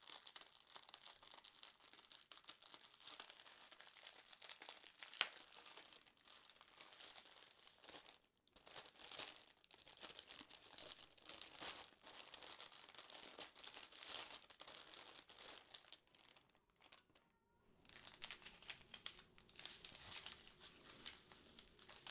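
Clear plastic bags of diamond painting drills crinkling as they are handled and unfolded. The crinkling pauses briefly about eight seconds in and again around seventeen seconds in, and there is one sharp click about five seconds in.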